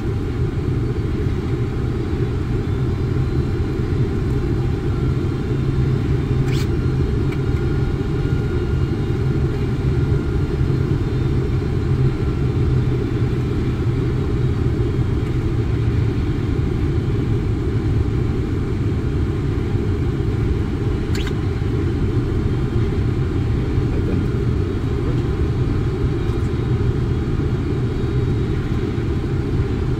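Steady low rumble of a Boeing 747-400 in flight on approach, heard inside the cockpit: airflow and engine noise that stays even throughout, with two faint clicks.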